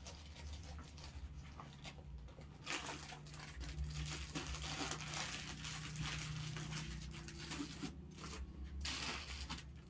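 Cotton dupatta rustling as it is handled and draped over the shoulders, a continuous crinkly swishing of cloth that grows denser from about three seconds in.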